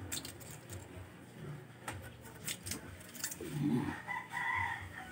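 Light metallic clicks and taps of hand tools on a Honda Click 125's exposed rocker arms and valve adjusters during a valve clearance adjustment. About three and a half seconds in, an animal call starts and lasts over a second.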